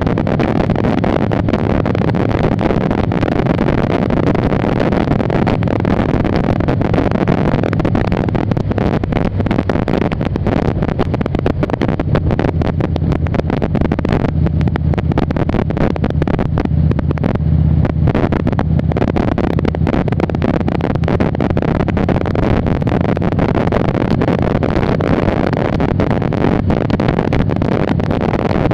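Wind buffeting the microphone on a moving motorcycle, over the low, steady note of a 2002 Harley-Davidson Ultra Classic's V-twin engine. About halfway through the wind eases for several seconds and the engine's low note comes through more plainly.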